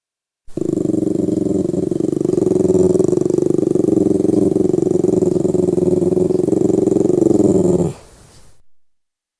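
Lhasa Apso growling in one long, unbroken low rumble. It starts about half a second in and stops abruptly near the end.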